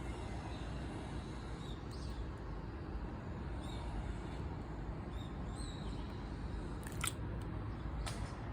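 Clear slime squished and stretched by hand over a steady low handling rumble, with faint small squelches and two sharp pops near the end.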